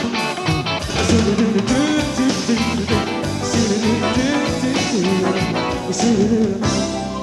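Live rock band playing a loud instrumental passage, with drums and guitar under a melodic line that bends up and down in pitch.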